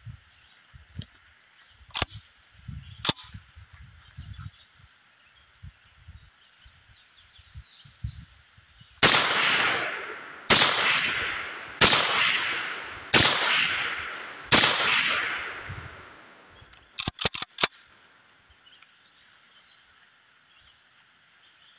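Five shots from an M1 carbine-style semi-automatic rifle, evenly spaced about a second and a half apart, each ringing out and fading slowly. Two sharp clicks come before the shots and a quick rattle of clicks follows them.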